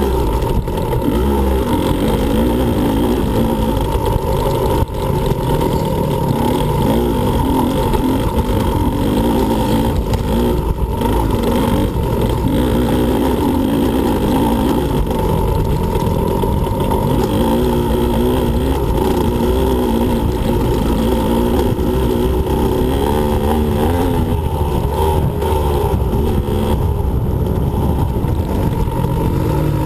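Two-stroke engine of a 2015 Husqvarna TE125 dirt bike running hard on a trail, its revs rising and falling continually with the throttle.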